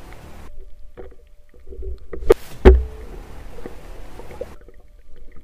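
Muffled underwater sound through a submerged camera during a night spearfishing dive: a low rumble, broken by two sharp knocks about half a second apart a little over two seconds in. The second knock is the louder, with a low thud.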